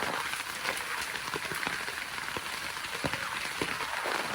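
Heavy rain falling steadily on a plastic tarp shelter: a constant hiss dotted with sharp individual drop hits.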